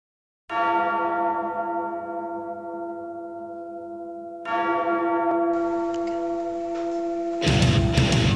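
A deep bell tolls twice, about four seconds apart, each stroke ringing on and slowly fading. Near the end loud rock music breaks in over it.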